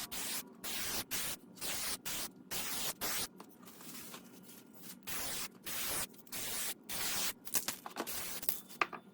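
Spray paint hissing from the nozzle in short bursts, about two a second, each lasting under half a second, as coats are laid on small car badges.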